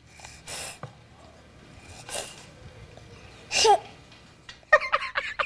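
A baby vocalizing: a few breathy exhales, then a short squeal that drops in pitch. Quick babbled syllables follow near the end.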